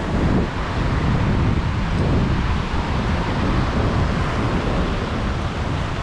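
Wind buffeting the microphone, over the continuous wash of ocean surf on a beach.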